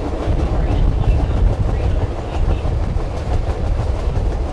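Alaska Railroad passenger train running on the track: a steady low rumble with faint, irregular clicks of the wheels over the rails.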